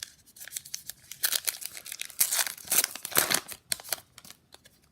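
Wrapper of a Gypsy Queen baseball card pack being torn open and crinkled by hand, a run of crackly tearing loudest in the middle and tapering off near the end.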